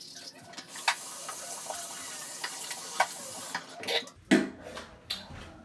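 Bathroom sink faucet running water into the basin for about three and a half seconds, with small clicks and taps, then shut off; a loud knock follows just after.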